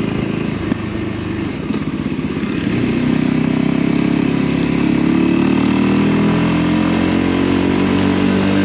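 Voge motorcycle engine running on the move, heard from the rider's seat. The engine pulls harder about two and a half seconds in, and its note rises slowly as the bike gathers speed.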